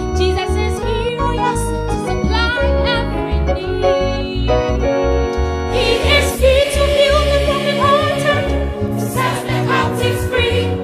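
Gospel choir song with keyboard and bass accompaniment. An instrumental passage plays first, and the voices come in with sustained, wavering notes about six seconds in.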